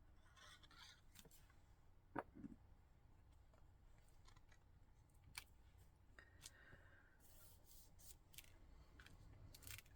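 Faint paper and card being handled during card making: soft rustles and small scattered clicks, with one sharper tap about two seconds in.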